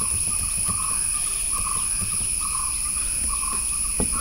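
Steady background of night insects: a constant high-pitched buzz, with a short lower call repeating about every three-quarters of a second. A single sharp click comes near the end.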